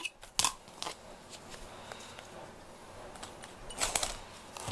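A few light clicks, then a short scratchy rustle about four seconds in as a cat's paw moves against the cardboard box it is lying in.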